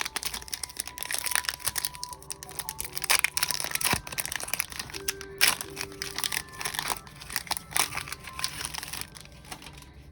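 Foil booster-pack wrapper of a Pokémon card pack being torn open and crinkled in the hands: a dense run of sharp crackles and snaps that thins out near the end. Quiet background music plays underneath.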